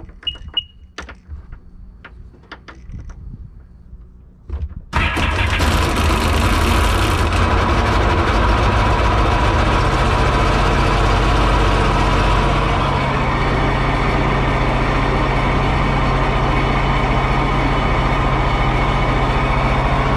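Sea-Doo GTI 130's Rotax 4-TEC three-cylinder four-stroke engine, after a few small clicks and a short beep, cranks briefly and catches about five seconds in, then idles steadily. It runs a little rough, which the owner puts down to burning off oil that had leaked into the cylinders from the spark plug tubes.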